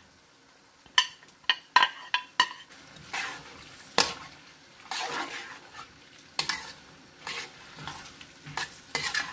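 Spoon stirring okra in a frying pot, knocking and scraping against the pot at irregular intervals, over a light sizzle of frying.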